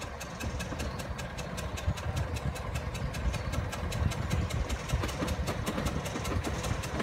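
Engine of a small narrow-gauge diesel locomotive running at low revs as it approaches slowly.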